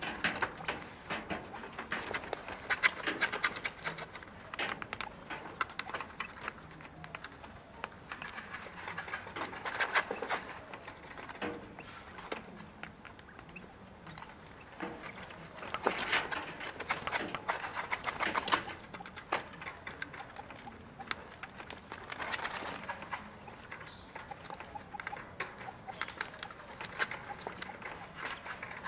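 Quail dustbathing in a plastic tray of sand: irregular bursts of scratching and sand pattering as the birds dig, shuffle and flick sand, coming in clusters every few seconds.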